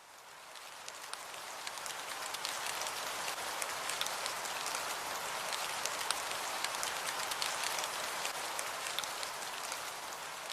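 Steady rain pattering, a dense hiss of fine drop ticks that swells up over the first two seconds and then holds steady.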